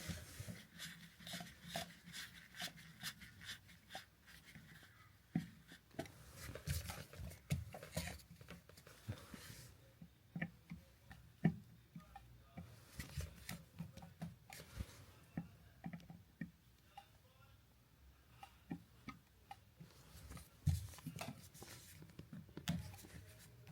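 Flathead screwdriver driving the single screw of a wall outlet cover plate: irregular clicking and scraping strokes, with short pauses in between.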